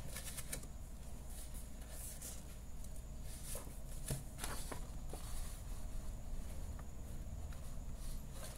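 Faint handling noise: a few soft taps and rustles over a low steady hum, as the phone camera is moved over an open workbook.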